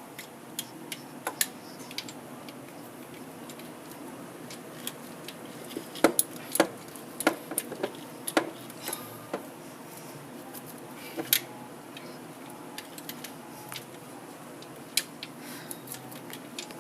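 Irregular metallic clinks and clicks of hands and tools working on parts in a car's engine bay, busiest in the middle, over a steady low background hum.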